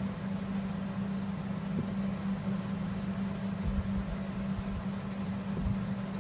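A steady low hum throughout, with faint light clicks of metal knitting needles working fabric strips and a couple of soft low bumps near the end.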